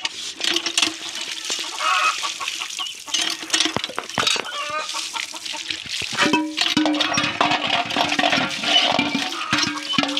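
A flock of khaki Campbell, Indian Runner and local ducklings and young ducks peeping and calling as they feed, with quick clicks of bills pecking the ground. From about six seconds in, water from a hand pump splashes over a hand into the trough.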